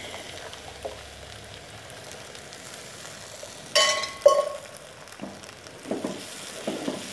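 Chopped onions and garlic-ginger paste frying in oil in a nonstick wok, with a steady sizzle. About four seconds in, tomato purée is poured in with a brief louder burst, a ringing clink and a sharp click. A few scrapes of the spatula follow as it is stirred.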